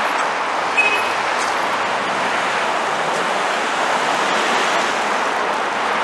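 Steady hiss of road traffic, cars driving past on a city street, with one short click about a second in.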